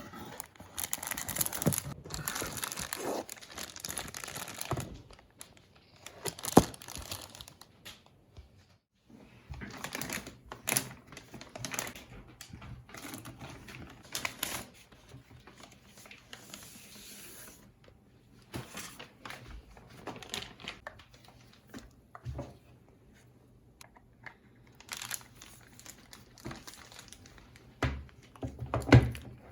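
Packaging being handled while unboxing a desktop computer: crinkling, rustling and tearing in irregular spells, with scattered knocks and a sharp one about six and a half seconds in.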